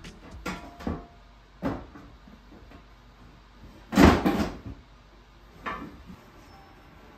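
A few light knocks and clunks of kitchen handling, then a crock pot is dropped and lands with a loud clatter about four seconds in.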